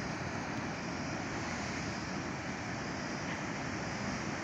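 Surf breaking on a rocky shore, a steady rushing of waves without a break.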